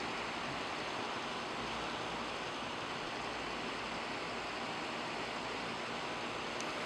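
Steady, even hiss of room or recording noise, unchanged throughout, with a faint tick near the end.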